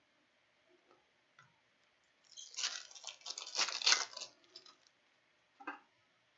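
Hockey card pack wrapper being torn open and crinkled by hand: about two seconds of irregular crackling starting a couple of seconds in, followed by a short click near the end.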